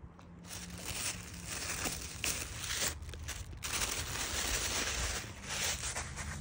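White tissue paper crinkling and rustling in uneven waves as a mini clutch bag is unwrapped from it by hand.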